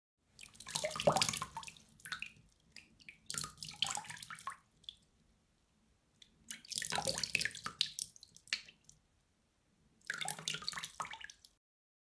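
Water splashing in four separate bursts, each a second or two long and tailing off in scattered smaller splashes.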